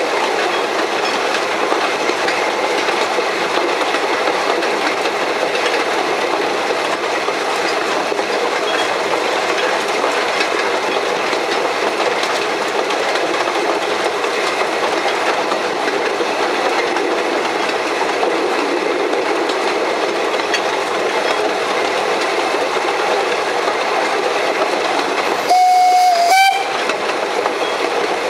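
1883 Hunslet narrow-gauge steam locomotive running along the line, a steady noise of wheels on rails and the engine working. Near the end its whistle sounds once for about a second, stepping slightly up in pitch just before it stops.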